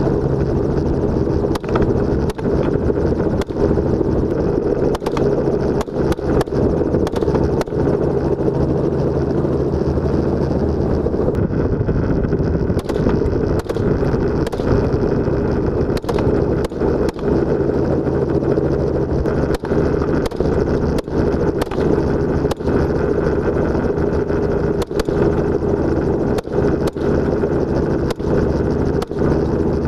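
Helicopter running in flight: a steady, loud engine-and-rotor drone with several steady low tones.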